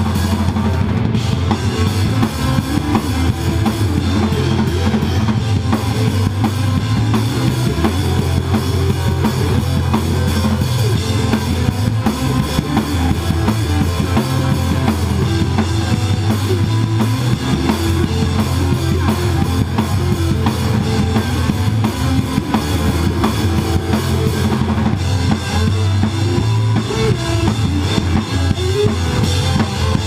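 Live rock band playing, heard from right beside the drum kit: the drums, with kick drum and cymbals, are loudest, over electric guitar and a strong low bass line.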